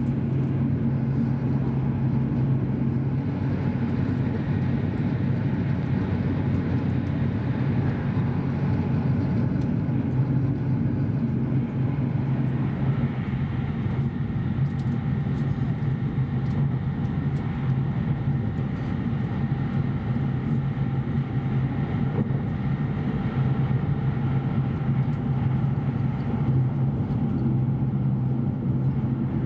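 Cabin noise inside an E7 series Shinkansen train running at speed: a steady low hum with fainter higher whine tones that stand out more clearly in the second half.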